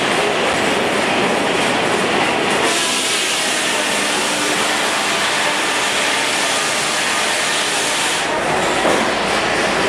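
Rumely 36-120 twin-cylinder steam traction engine running under load as it drives a sawmill, a steady dense mechanical noise. A harsher, hissier sound comes in about three seconds in and drops away about a second and a half before the end.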